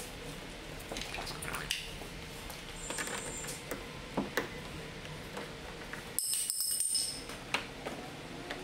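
Light clicks and small plastic knocks of a chrome exterior door-handle cover being worked loose from a Toyota Tundra rear door, with a brief bright rattling scrape about six seconds in.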